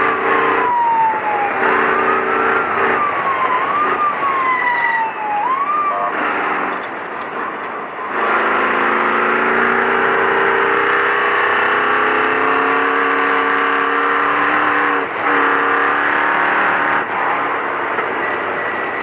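Ford Ranger race truck's engine heard from inside the cab while driving hard off-road. Over the first six seconds a whine swoops up and down in pitch as the revs rise and fall. From about eight seconds in it settles into a steadier, slowly climbing note.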